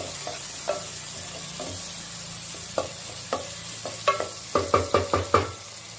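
Chopped tomatoes frying and sizzling in a nonstick pan while a wooden spatula stirs and scrapes them, the tomatoes cooking down to soften. A quick run of spatula knocks against the pan comes about four and a half seconds in.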